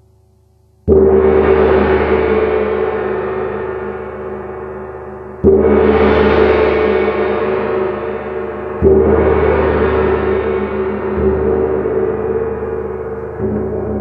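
A 22-inch wind gong, which its owner believes is Turkish-made, struck with a felt-headed mallet: three strong strokes about a second, five and a half and nine seconds in, then two softer ones near the end. Each stroke swells into a bright, long ring that is still sounding when the next one lands.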